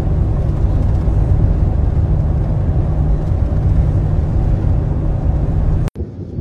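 Loud, steady, low rumbling noise that cuts off abruptly about six seconds in.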